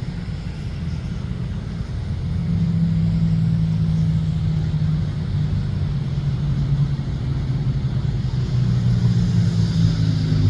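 Fire truck engine running, a low steady drone that grows louder about two seconds in.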